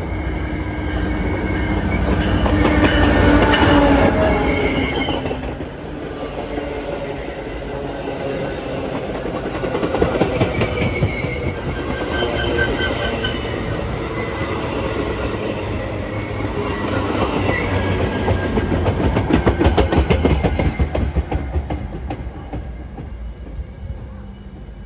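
Metra commuter train pulling into a station: railcar wheels click over the rail joints, with high wheel squeal as the train slows. The sound dies down near the end.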